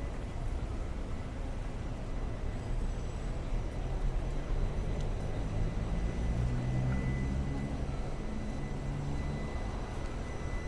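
City street traffic: a steady low rumble of vehicles, with one engine running louder and closer from about five to nine seconds in. A thin steady high tone sits faintly over it.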